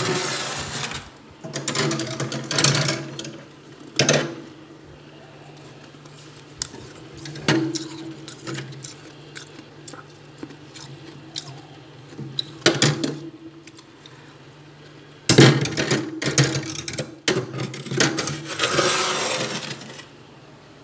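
Frost being scraped from the inside of a freezer in irregular rasping bursts a few seconds apart, the longest ones near the end, over a steady low hum.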